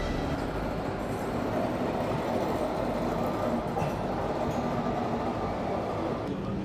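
Indian Railways electric locomotive running light at low speed along the yard tracks, a steady rail rumble.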